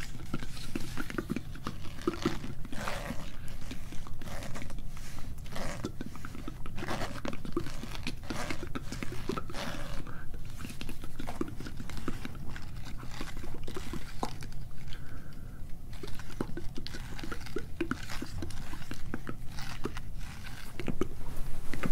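Close-miked ASMR scratching: dense, irregular crunchy scratches and taps from fingers working right at the microphone, mixed with soft, unintelligible whispering.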